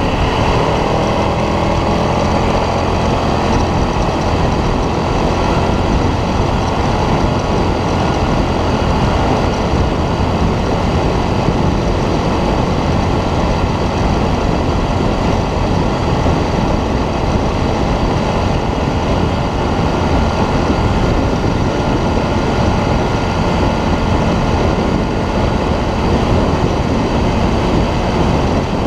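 ATV (quad bike) engine running steadily under way, with a constant rushing noise over it.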